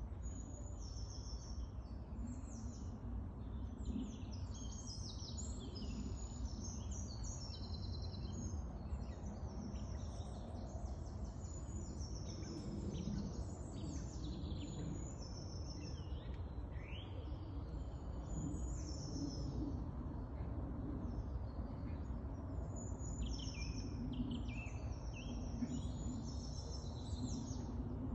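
Several woodland birds chirping and singing throughout, many short high calls and trills overlapping, over a low steady rumble.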